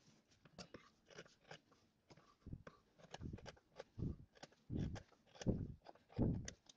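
Scissors snipping through silk brocade fabric with gold zari, a series of short cuts trimming excess cloth, faint and sparse at first, coming more often from about three seconds in.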